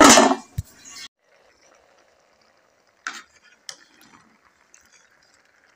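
An aluminium cooking-pot lid is handled with a loud clatter at the start. Then a spoon clicks and scrapes a few times in the pot as the frying potatoes and aubergine are stirred, over a faint sizzle.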